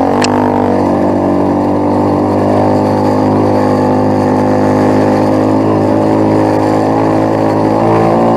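Quad bike engine running at a steady throttle while under way, its note holding even, with a slight change in revs near the end.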